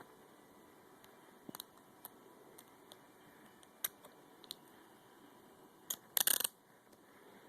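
Small metallic clicks of a Smith & Wesson handcuff being worked with a safety pin in place of a key, a few scattered single clicks and then a quick run of clicks a little after six seconds in, the loudest.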